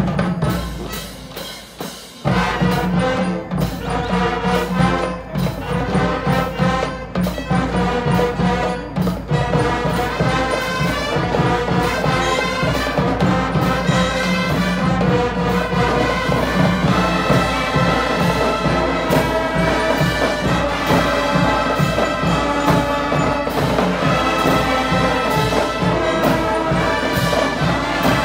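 A student marching band of brass and drums playing. After a brief dip at the very start, the full band comes in about two seconds in, with a steady drum beat under the brass.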